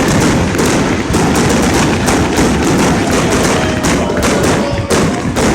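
Fireworks going off in a dense, loud barrage of rapid bangs and crackles with no break between them.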